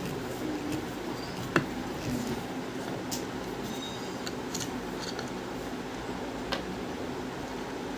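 Old electric ceiling fan running with a steady hum, with a few sharp clicks over it.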